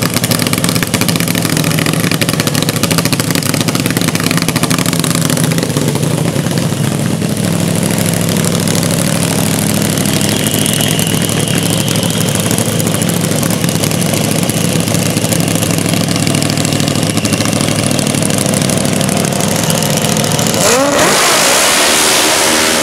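Top fuel dirt drag motorcycle engine idling steadily at the start line, then revving up hard near the end as the bike launches down the dirt strip.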